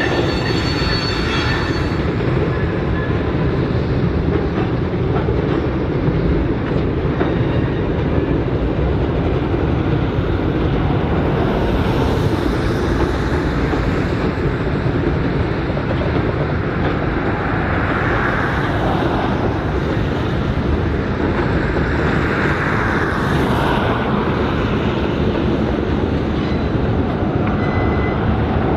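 Freight train rolling past with a steady, loud rumble of wheels on the rails. A train horn note fades out about two seconds in.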